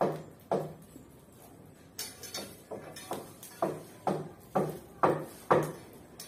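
Stick broom (walis tingting) sweeping dirt ground in short, sharp strokes, about two a second. The strokes pause for about a second after the first second, give way to softer scrapes, then pick up again.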